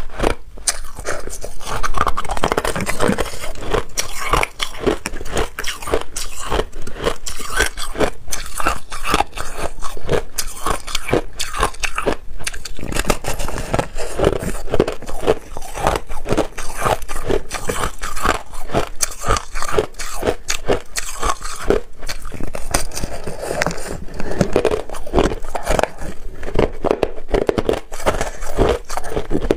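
A person biting and chewing hard white ice, a steady dense run of sharp crunching cracks as the ice breaks between the teeth.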